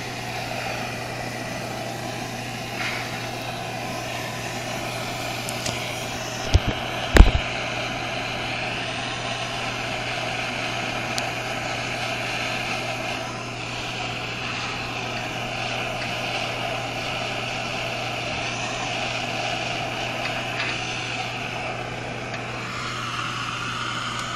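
Handheld gas torch burning with a steady hissing flame while it heats a copper pipe joint for soft soldering, easing off near the end as the torch is drawn away. Two sharp clicks come about seven seconds in, over a constant low hum.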